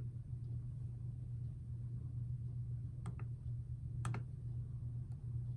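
A few sparse key clicks on a Samsung Chromebook 3's low-travel laptop keyboard: a pair about three seconds in, another a second later and a faint one near the end. A steady low hum runs underneath.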